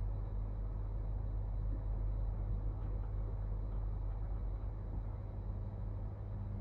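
Elevator running: a steady low hum of the car and its machinery in motion, the deepest part of the hum easing off a little near the end.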